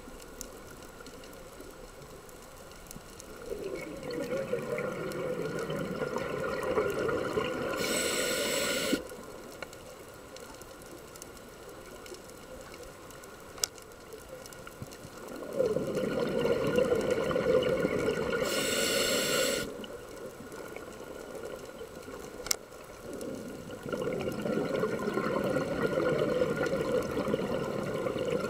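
A scuba diver breathing through a regulator: two full breath cycles and the start of a third, each several seconds of low rushing bubble noise ending in a brief high hiss, with quieter pauses between them. Two faint clicks fall in the pauses.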